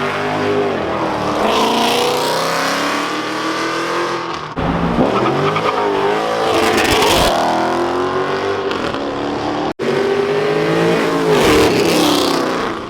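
Car engines revving hard and accelerating away, their pitch climbing and dropping again several times. The sound breaks off abruptly twice.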